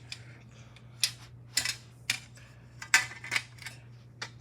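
Rocks and shells clattering as they tumble in a washing machine drum: irregular sharp knocks and rattles, one or two a second, over a steady motor hum.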